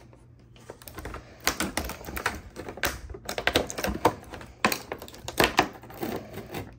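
Clear plastic packaging crinkling and crackling as it is handled and pulled open, a fast irregular run of sharp crackles and clicks.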